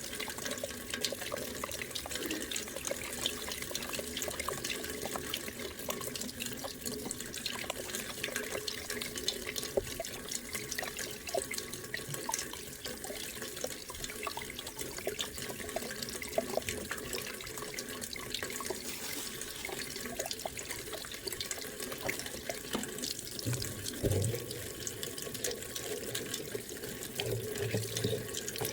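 Rainwater running and splashing into a container as it fills, a steady hiss with a dense patter of drops.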